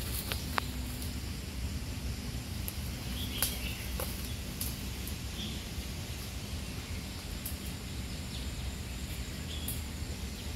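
Forest ambience: a steady low rumble with a scattered handful of short, sharp clicks and snaps, and a few brief, faint bird chirps.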